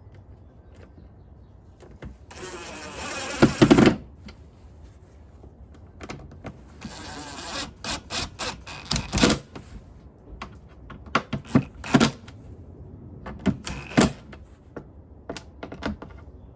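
Plastic parts of an O-Cedar EasyWring spin mop bucket being handled and fitted together: two spells of rattling clatter, the first ending in loud knocks, then scattered clicks and knocks.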